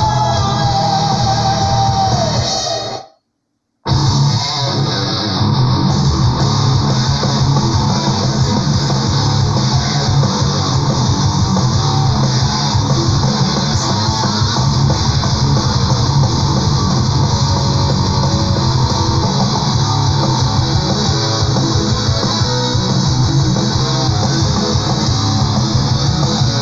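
Power/progressive metal song on a studio recording. A held note with vibrato ends about two and a half seconds in, then the band stops dead for about a second. It crashes back in with distorted electric guitars and bass and keeps driving to the end.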